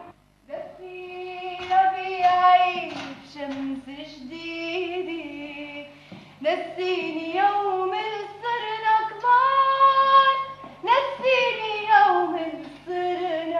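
A woman singing a slow melody alone, with long held notes and sliding pitch.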